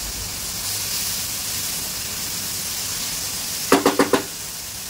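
Onion, tomato and capsicum masala frying in oil in a pan, a steady sizzle. About three and a half seconds in, the spatula raps the pan four times in quick succession, with a short metallic ring.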